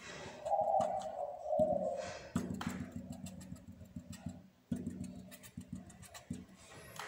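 Felt-tip marker dotting on paper: a quick, irregular run of light taps as the tip is pressed down again and again. A held tone sounds in the background from about half a second to two seconds in.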